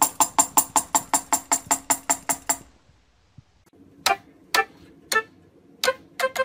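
A tambourine is struck by a cockatiel in a fast, even run of jingling hits, about six a second, that stops about two and a half seconds in. After a short pause, a cockatoo pecks out a few single notes on a toy keyboard, about two a second.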